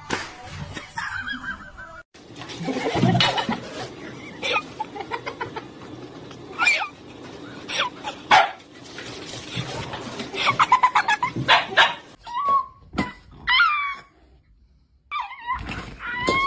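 A husky barking and whining in short, sharp calls.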